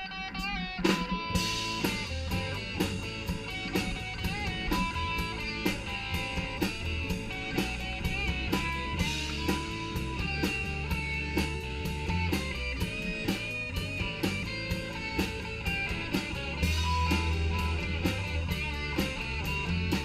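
A rock band playing live without vocals: electric guitar lead lines over bass and a steady drum-kit beat.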